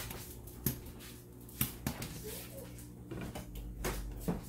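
Popcorn kernels popping now and then inside a pot with a glass lid, cooking in melted Skittles: about half a dozen sharp pops spread unevenly.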